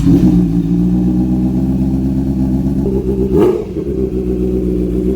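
Honda CBR650R inline-four engine idling through an aftermarket exhaust, with a quick throttle blip about three seconds in that rises and falls in pitch.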